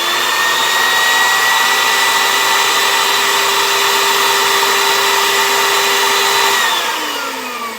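Oreck bagged vacuum cleaner running with a steady high whine, switched off about six and a half seconds in, its motor winding down with a falling pitch.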